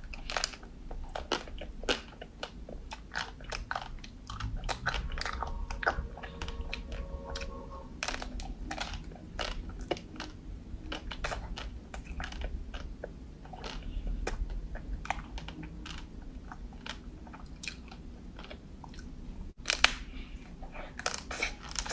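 Close-up biting and chewing of a Magnum matcha ice cream bar, its crisp coating cracking in many small irregular crunches, with a louder crunch near the end.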